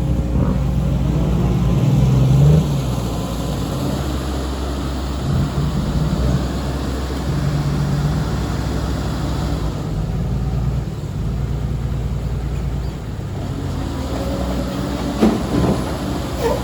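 CAT 320D2 GC excavator's diesel engine working, its pitch and load rising and falling as it digs, with a few short clanks near the end.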